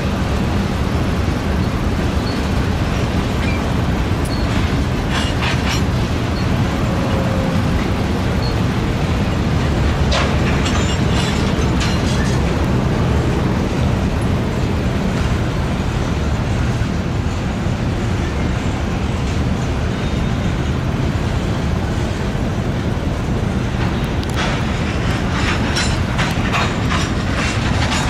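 Freight cars of a manifest train, covered hoppers, rolling past: a steady rumble of steel wheels on rail. Clusters of sharp clacking come a few seconds in, around the middle and near the end.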